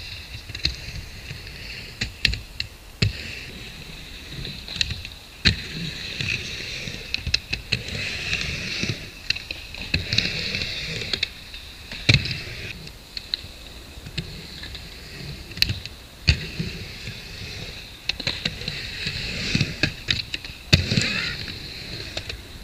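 Skateboard riding a wooden mini ramp: the wheels roll with a continuous rumble, broken by many sharp clacks as the trucks and tail hit the ramp and coping.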